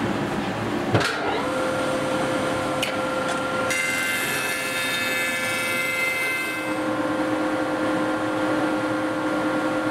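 A thickness planer running steadily with a sharp knock about a second in, then its cutterhead biting into a glued-up hardwood strip panel from about 4 s to 6.5 s, flattening the panel's uneven surface.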